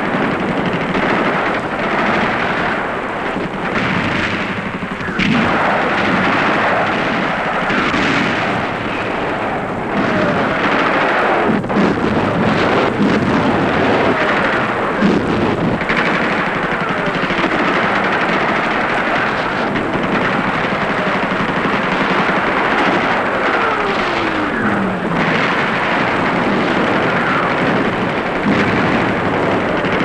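Battle noise: steady rifle and machine-gun fire mixed with shell explosions, with several whistles falling in pitch through it.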